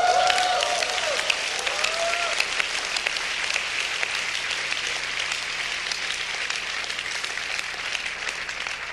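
A congregation applauding steadily, with a few voices calling out over the clapping in the first two seconds; the applause dies down near the end.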